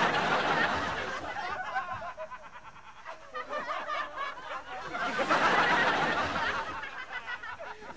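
Sitcom audience laughter, a crowd laughing together, loud at first, dying down, then swelling again for a couple of seconds before fading.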